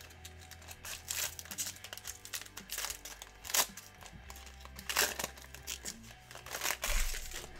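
Foil trading-card pack wrapper crinkling and crackling as it is pulled open by hand, with sharper crackles about three and a half, five and seven seconds in. Soft background music plays underneath.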